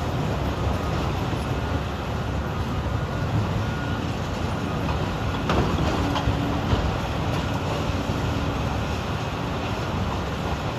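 Caterpillar 395 excavators and haul trucks running, a steady low diesel rumble, with one sharp knock about five and a half seconds in.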